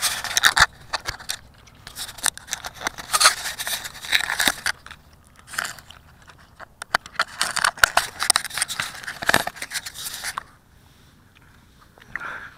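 Handling noise on a small action camera: fingers and strapping scraping and rubbing right against its body and microphone, in several loud bursts with sharp clicks, then dying down about two seconds before the end.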